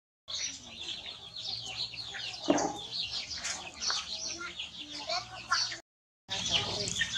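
Chickens clucking and chirping, many short high calls one after another. The sound drops out completely for about half a second near six seconds in.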